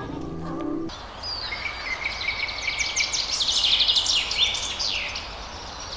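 Many small birds chirping and whistling over one another in dense, rapid calls, starting abruptly about a second in.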